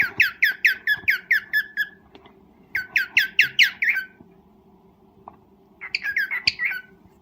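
Cockatiel giving its mating call: rapid runs of short falling chirps, about five a second, in three bouts, the last one shorter and more broken.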